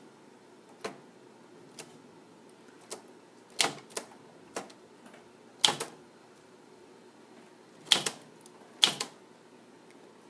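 Keys being struck one at a time on a manual typewriter from the 1970s or 1980s: about a dozen sharp clacks at a slow, uneven pace. Some come in quick pairs, and a few strikes are much harder than the rest.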